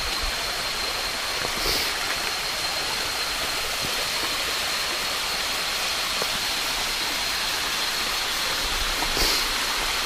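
Thin flow of a dry-season waterfall running down its rocks: a steady rush of water, with little water coming down. A faint thin high tone is held above it throughout.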